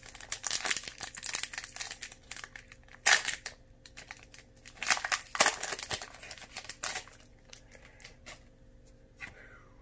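Foil wrapper of a Pokémon trading-card booster pack being torn open and crinkled, in irregular bursts of crackling for about seven seconds, then fainter rustling.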